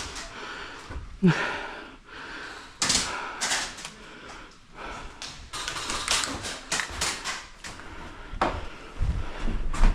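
Airsoft guns firing: irregular sharp clicking shots, some in quick runs, with a louder snap about a second in and again near three seconds.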